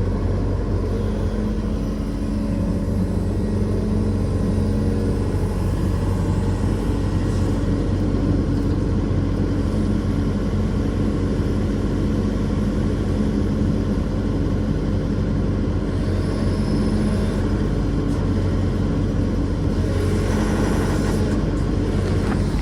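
Heavy diesel engine running steadily at an even speed, a low hum with a constant pitch.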